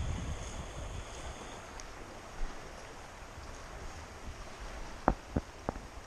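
Flowing river water with wind buffeting the microphone, and three sharp clicks in quick succession about five seconds in.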